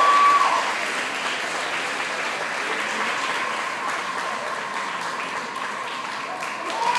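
Audience applauding steadily. A cheer fades out about half a second in, and cheering and whoops rise again near the end.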